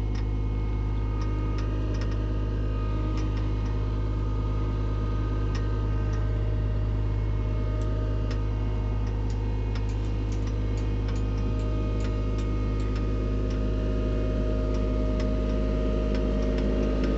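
Skid steer engine running steadily as the machine drives with a loaded bucket, with light, irregular ticking and clicking over it. The engine gets a little louder near the end.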